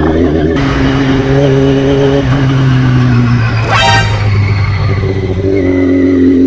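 Yamaha R6's inline-four engine running at fairly steady revs while riding. A short horn beep sounds just before four seconds in.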